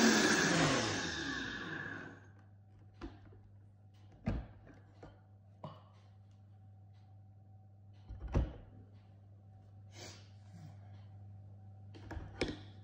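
Vitamix blender motor spinning down after being switched off, its pitch falling as it fades out over about two seconds. Then a few knocks and thunks as the plastic jar is lifted off the motor base and set back on it.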